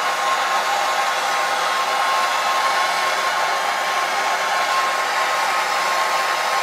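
Propane torch flame hissing steadily as it heats a copper pipe joint for soldering aluminum to copper.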